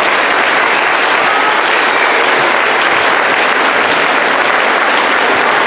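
Large audience applauding steadily after an orchestra performance.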